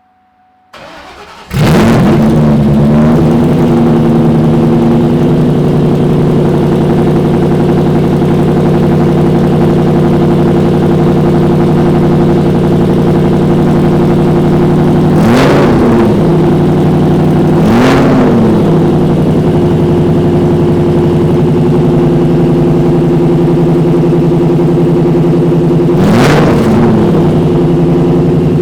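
2003 SVT Cobra's supercharged 4.6-litre DOHC V8, run with long-tube headers, an off-road X-pipe and no cat-back exhaust, cranked and started about a second in, then idling very loud. It is blipped three times: twice close together about halfway through and once near the end. It is really loud.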